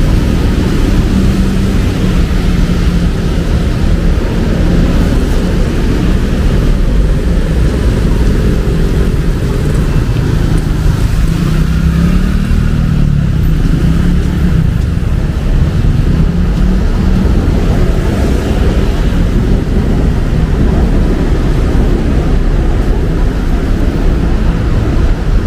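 City street traffic: cars and motorcycles running past on a rain-wet road, a steady wash of engine and tyre noise. An engine note swells and falls away about halfway through.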